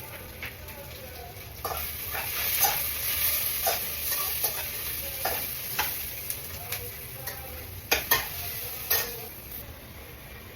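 Onions and garlic frying in hot oil on medium heat, sizzling, with a spoon stirring and knocking against the pan several times. The sizzle grows louder about two seconds in.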